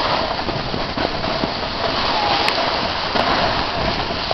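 Steady rushing hiss of a snowboard sliding over packed snow, mixed with wind on the microphone, while riding downhill.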